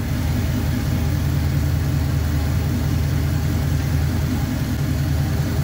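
1966 Pontiac Catalina wagon's engine idling steadily, a low even rumble, as the car moves slowly under its own power.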